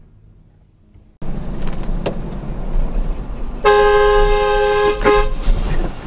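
A vehicle horn honks over the low rumble of road and engine noise for about a second and a half, starting past halfway, with a brief break near its end. Before that the road noise jumps suddenly louder about a second in.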